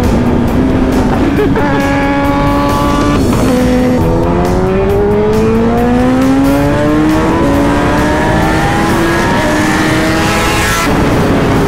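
Kawasaki Ninja ZX-10R inline-four with an SC Project S1 exhaust accelerating hard, its pitch climbing and dropping back through a run of upshifts, then easing off near the end.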